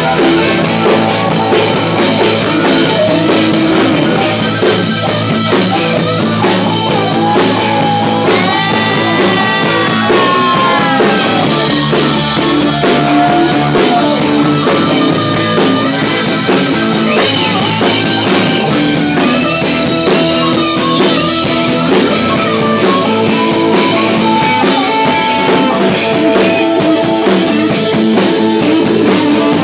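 Live rock band with electric guitar, drum kit and amplified harmonica played cupped to a microphone, an instrumental passage without singing. The lead notes bend in pitch about eight to eleven seconds in and again around seventeen to twenty-one seconds in.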